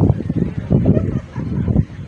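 Wind buffeting the microphone: a low, irregular rumble that rises and falls in gusts.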